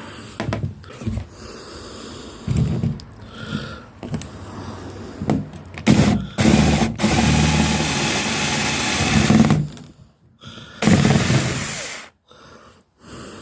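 Power drill running in several short bursts and one longer steady run, turning a screw extractor into a stripped screw to back it out.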